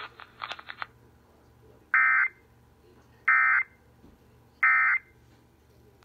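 Emergency Alert System end-of-message data bursts on the radio broadcast: three short, identical bursts of shrill digital tones about a second and a half apart. They signal the end of the EAS test alert.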